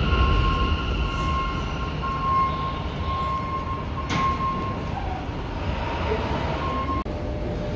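New York City subway train at an elevated station: a low rumble under a steady high-pitched whine that stops about seven seconds in, with a single sharp clank about four seconds in.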